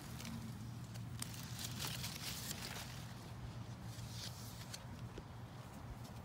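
Footsteps and light rustling on grass and soil, irregular and soft, over a steady low hum.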